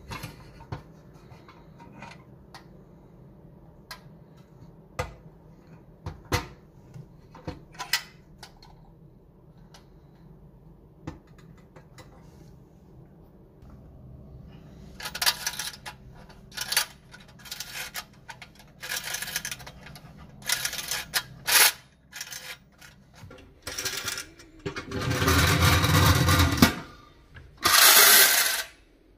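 Tin clockwork toy ocean liner being handled, with scattered clicks and taps of sheet tin. In the second half its spring motor is wound and run in short bursts of whirring, the longest about two seconds, with a last run of about a second near the end while the toy is held off the table and its wheels spin freely.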